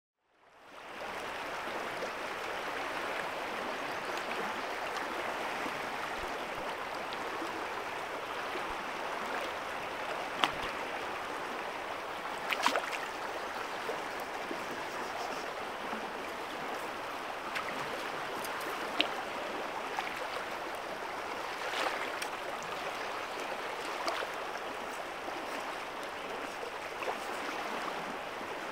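Steady rushing of the Deschutes River's flowing water, fading in over the first second, with a few short sharp clicks or knocks scattered through it.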